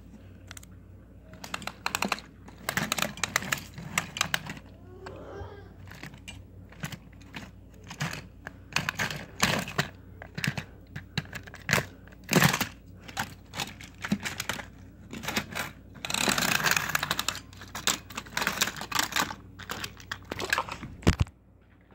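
Irregular clattering, clicking and knocking of toy trains and track pieces being handled and moved about, with a longer rustling stretch about three-quarters of the way through and a sharp knock just before the end.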